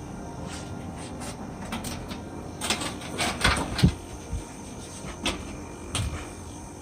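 Irregular clicks and knocks over a steady low hum, busiest a few seconds in.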